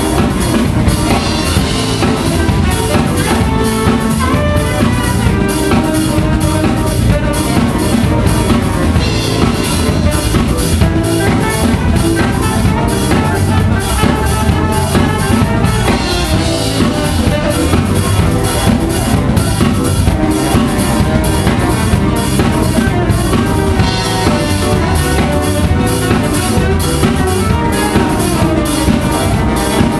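Live band playing: a Pearl drum kit keeping a steady beat under keyboards and saxophone.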